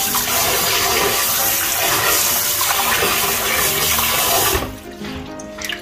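Kitchen faucet running hard into a stainless colander in a steel sink while hands rub and rinse a raw octopus under the stream. The rush of water cuts off about four and a half seconds in, leaving a few small splashes and drips.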